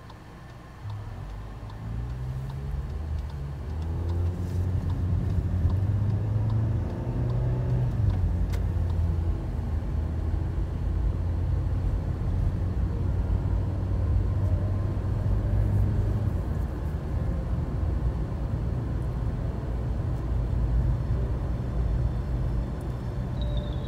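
Car engine and road rumble heard from inside the cabin. The engine note rises as the car pulls away and gathers speed over the first several seconds, then settles into a steady low rumble at cruising speed.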